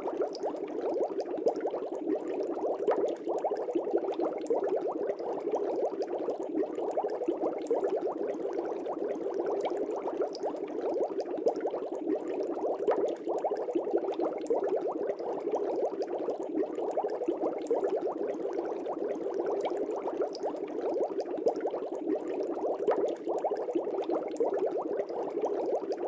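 Aquarium bubbling: a steady stream of air bubbles rising through the tank water, an even bubbling made up of many tiny pops.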